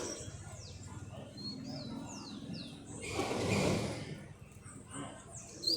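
Double-collared seedeater (coleiro) singing: quick series of high, downward-sweeping whistled notes in the first two seconds and again near the end. In the middle comes a loud burst of rustling noise lasting about a second.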